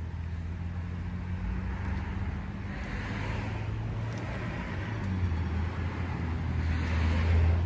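A motor vehicle's engine running, a low steady hum that grows louder toward the end.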